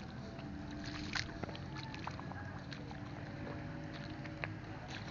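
Wading through mud and shallow paddy water, with scattered small splashes and squelches over a steady low hum.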